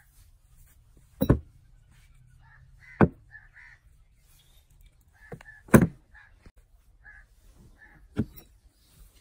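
Sharp metallic knocks and clicks from the steel barrel and receiver of an old single-barrel 12-gauge break-action shotgun being handled and fitted together, about five in all, a second or two apart. Faint short bird calls sound between them.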